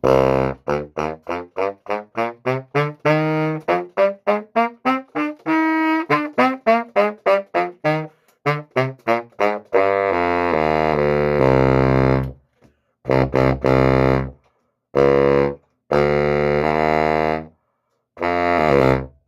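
Selmer SBS311 baritone saxophone played: a quick run of short tongued notes climbing up from low A and coming back down, then several longer held low notes with short pauses between them.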